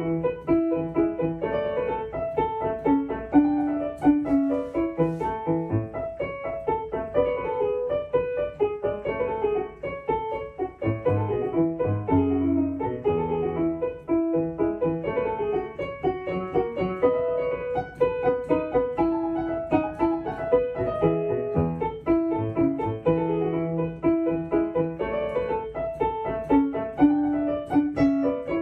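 Grand piano played continuously in a brisk run of short, detached note groups, played with a kick-off touch, staying close to the keys and flicking forward off them.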